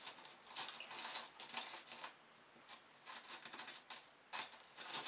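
Small metal charms rattling and clinking in a round tin as fingers rummage through them, in several spells of quick clicks with short pauses between.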